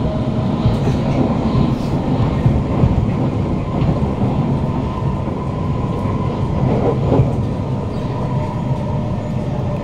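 Kawasaki Heavy Industries C151 metro train running at a steady speed, heard from inside the car: wheels rumbling on the rails under a steady whine from its GTO-VVVF traction motors, with a few light knocks from the track, the clearest about seven seconds in.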